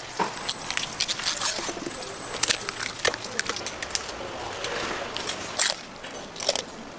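Knife cutting and scraping through an eel on a wooden cutting board: irregular clicks, taps and scrapes, with two sharper knocks near the end.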